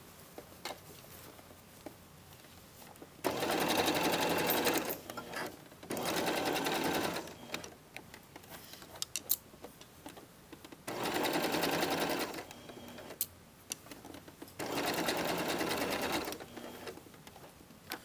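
Domestic electric sewing machine zigzag-stitching in four short runs of about one to two seconds each, with small clicks from handling the fabric in the pauses between runs.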